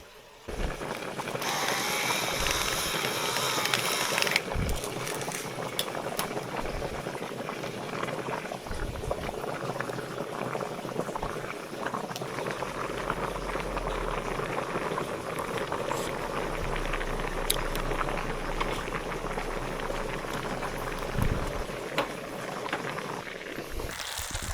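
Water bubbling steadily, with a louder hissing stretch about two to four seconds in.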